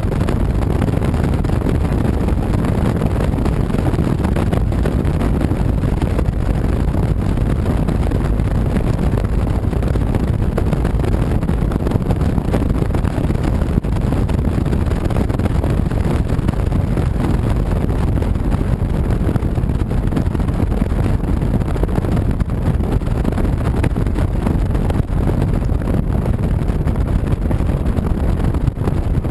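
Motorcycle cruising on the road: a steady rush of wind on the microphone mixed with the engine's low drone, with no changes in pace.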